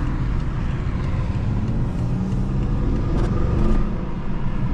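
Engine and tyre noise inside a moving BMW sedan's cabin, with the engine note climbing as the car accelerates about three seconds in.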